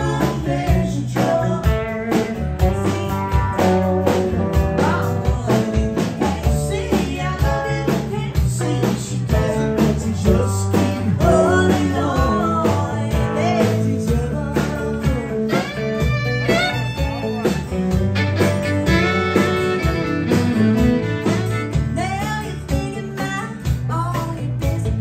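Live country band: a woman singing lead over strummed acoustic guitar, electric guitar and a drum kit keeping a steady beat.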